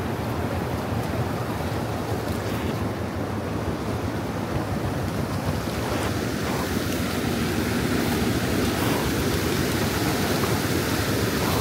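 Steady rushing noise of floodwater pouring over an embankment, with wind on the microphone.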